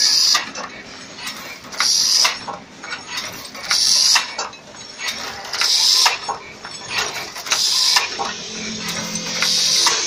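Fully automatic crimped wire mesh weaving machine running: a continuous metallic clatter and clinking of its gears and mechanism, with a louder hissing metallic stroke about every two seconds.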